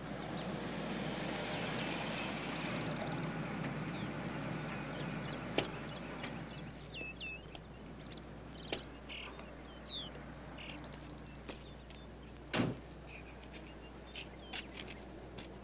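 Birds chirping and trilling over a low rumbling noise that swells and then fades within the first six seconds. Scattered light knocks follow, and one sharp thump comes about twelve seconds in.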